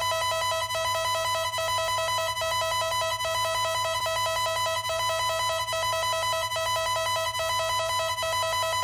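Electronic warning siren sounding a steady, high-pitched, rapidly pulsing tone that holds one pitch without rising or falling.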